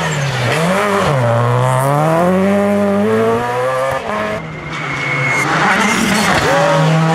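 Rally car engines at racing speed on a tarmac stage. Through a corner the engine drops and climbs in pitch several times as the driver lifts, brakes and picks up throttle. After a break about four seconds in, another rally car's engine climbs and holds high revs.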